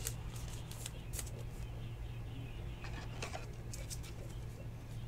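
Faint rustles and a few light clicks of a trading card and a clear plastic top loader being handled, over a steady low electrical hum.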